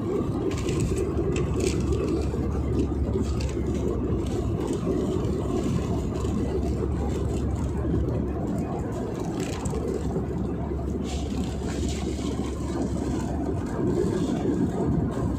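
Steady rumble of an airliner's engines and rushing air, heard from inside the passenger cabin, with faint rattles now and then.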